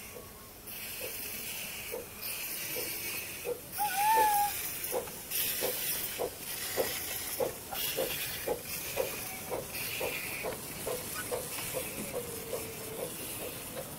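Miniature steam locomotive pulling away: steam hissing in repeated chuffs about a second long, with regular knocks about two a second as it gathers way. A brief rising tone sounds about four seconds in.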